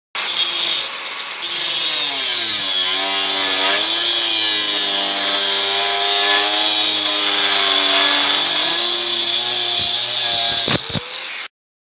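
Bosch PWS 750-125 angle grinder (750 W, 125 mm cutting disc) cutting through steel rebar: the motor's pitch dips and recovers as the disc is pressed into the bar, under a steady harsh hiss of the disc grinding the steel. A few sharp knocks near the end, then the sound cuts off suddenly.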